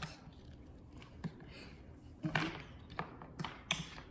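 Light taps and clicks of toy figurines being set down and moved on a table, a few quick ones in the second half.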